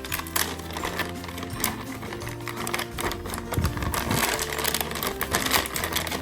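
Background music with held bass notes, over a rapid run of clicks and taps.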